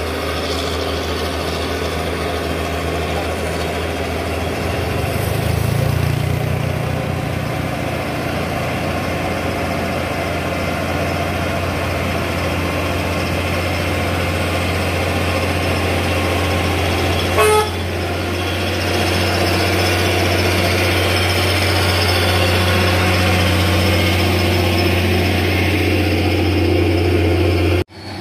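Hino 500 dump truck's diesel engine pulling hard up a steep hairpin climb, a steady low drone whose note rises about five seconds in. About two-thirds of the way through, a short horn toot.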